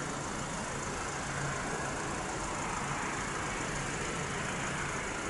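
Distant twin-turboprop engines of an ATR 72-500 airliner running steadily: an even rushing noise with a faint low hum.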